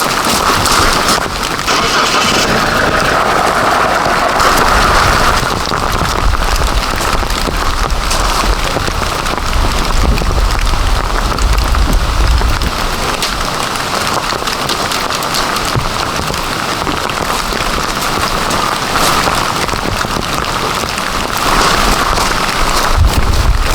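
Heavy rain falling steadily, with a dense hiss of drops. Low rumbles swell about five seconds in and again near the end.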